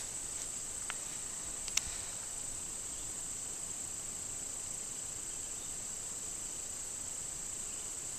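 Insects trilling in a steady, high, even drone, with a small click about a second in and a sharper click just under two seconds in.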